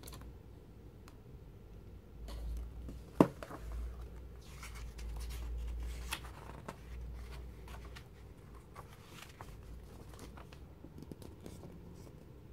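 Glossy magazine pages being handled and turned, paper rustling and crinkling, with a single sharp tap about three seconds in.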